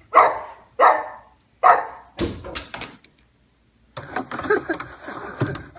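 Boxer dog barking: three loud barks about two-thirds of a second apart, then a few shorter, sharper sounds. From about four seconds in, a dense, noisy rustle.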